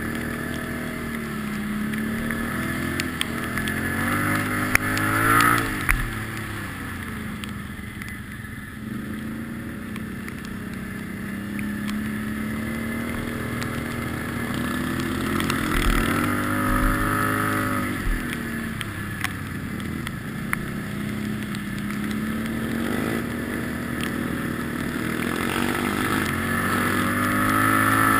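ATV (quad bike) engine running under way, heard from on board, its pitch rising and falling with the throttle: the revs climb about five seconds in, again around sixteen seconds and near the end, easing off between. A few sharp knocks break through now and then.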